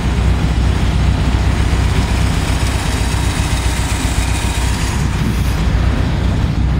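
Air-cooled flat-four engine of a vintage split-window VW bus idling steadily, a low, even rumble.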